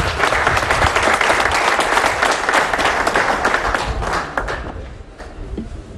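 A small crowd of men applauding, many hands clapping at once; it starts suddenly and dies away after about four and a half seconds.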